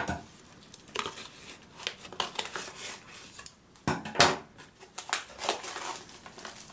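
White paper wrapping rustling and crinkling as it is pulled off potted cacti in a cardboard box, with two sharp knocks about four seconds in as a pot is handled.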